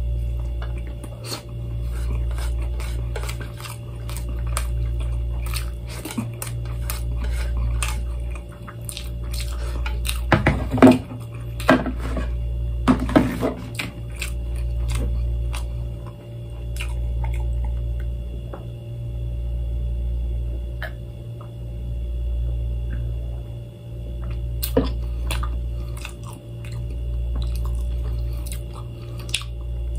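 Close-up chewing of food, with small wet clicks. About ten to thirteen seconds in, a plate and dishes knock and clatter on the table. Under it all runs a low hum that swells and fades about every two seconds.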